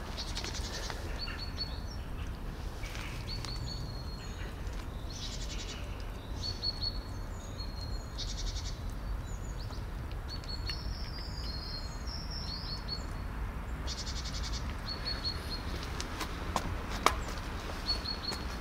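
Small birds chirping over and over in short high trills, over a steady low outdoor rumble, with a few sharp clicks near the end.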